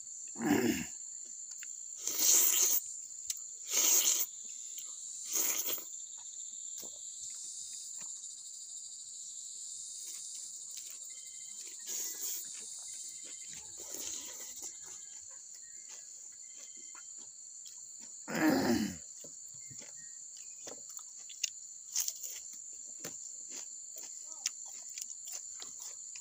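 A steady, high-pitched chorus of insects chirring, with a handful of short, loud mouth noises from someone eating by hand. Most of the mouth noises come in the first six seconds, and one more comes about two-thirds of the way through.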